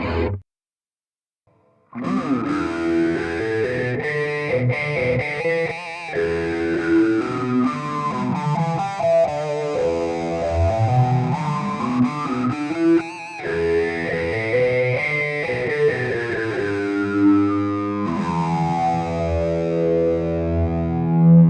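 Electric guitar played through the Playwell Tank-G multi-effects pedal on preset 3D, the tone sweeping slowly up and down about twice. It comes in after a short gap near the start and settles on a held, ringing chord near the end.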